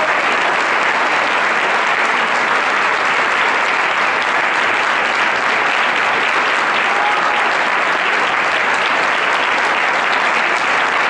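Steady, sustained applause from a concert audience, with the choir on stage clapping along.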